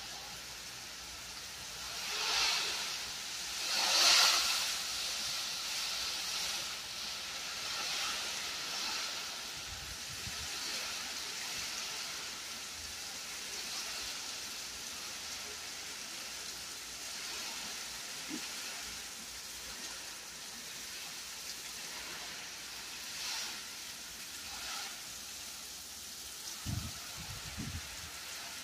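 Heavy rain pouring down in a steady hiss. It swells louder twice in the first few seconds, and a few short low thumps come near the end.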